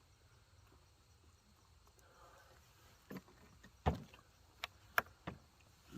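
A handful of sharp clicks and knocks, the loudest about four seconds in, from handling the chainsaw and its fuel container while fuelling it.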